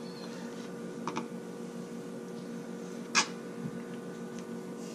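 Light handling on a plastic cutting board, a faint click about a second in and one sharp tap about three seconds in, as a knife and a tuna fillet are worked on it. Under it runs a steady low hum.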